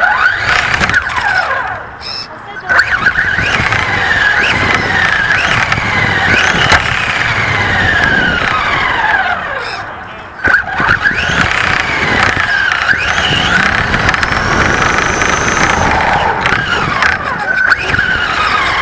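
RC car's motor whining, its pitch rising and falling as the throttle is worked, in three runs broken by brief pauses about two seconds and ten seconds in.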